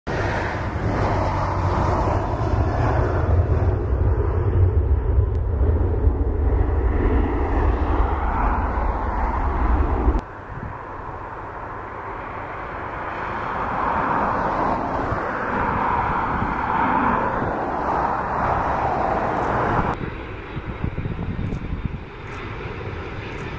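Jet engines of an Airbus A319 airliner on final approach: a steady jet noise with a heavy low rumble that stops abruptly about ten seconds in. The noise then swells as the aircraft nears and drops off suddenly near twenty seconds.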